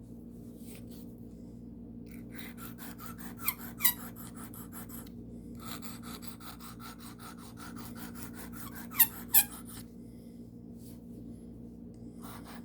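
Carbon steel pocket-knife blade stroked back and forth on the smooth, fine side of a sharpening stone in quick strokes, a few a second, in two runs with short pauses. Two pairs of sharp squeaks stand out, one near a third of the way in and one about two-thirds in. A steady low hum runs underneath.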